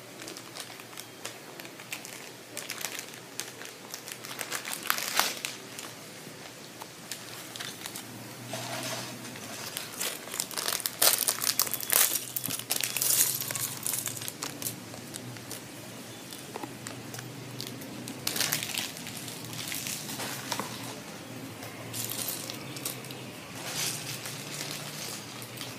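Thin plastic parts bags of a building-brick set crinkling as they are torn open and handled, in irregular bursts of crackling, loudest about eleven to thirteen seconds in.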